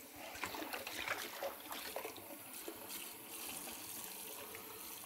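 Kitchen faucet running a steady stream of cold water into a stoneware crock-pot insert sitting in the sink, with a hand swishing the pieces in the water and small irregular splashes. The cold water is cooling the hot water in the pot.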